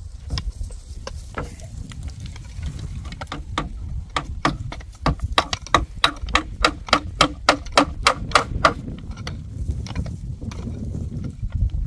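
Hammer nailing wooden roof planks: a few scattered knocks, then a quick, even run of about a dozen loud strikes near the middle, about three a second, before it slows again.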